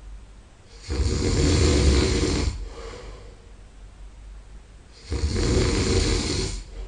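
A man snoring in his sleep: two loud snores, each about a second and a half long and about four seconds apart, with quieter breathing between them.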